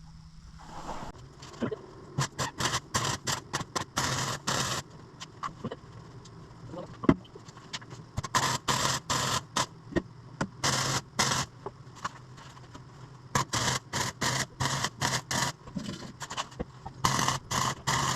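Welding an exhaust hanger onto the exhaust pipe: a run of short crackling bursts from the welding arc, starting and stopping with pauses between, over a steady low hum. One sharp click stands out about seven seconds in.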